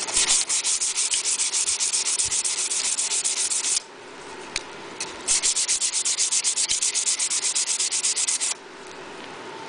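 Hand sanding a dye-stained pine board with 220-grit sandpaper in quick back-and-forth strokes: a light pass to knock down raised grain fuzz after a water-and-alcohol dye coat. It comes in two bouts of about three and a half seconds each, with a pause of over a second between them.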